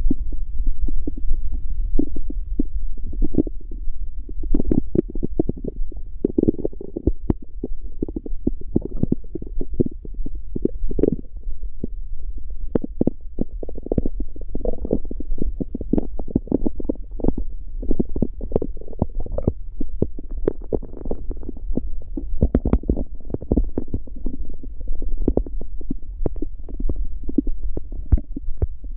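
Stomach growling: a continuous run of irregular gurgles, bubbling and crackles over a steady low hum, without a break.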